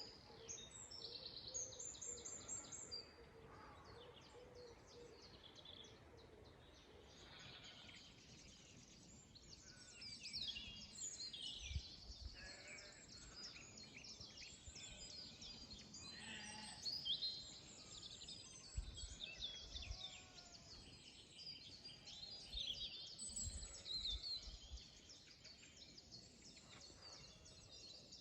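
Woodland birdsong, faint: several small birds chirping and singing over one another, with a few brief low rumbles in between.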